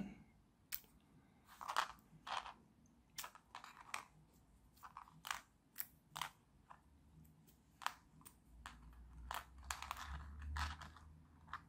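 Thin 3D-printed plastic puzzle pieces being pulled apart and set down on a cutting mat: light, irregular clicks and taps with a little soft rustling of handling.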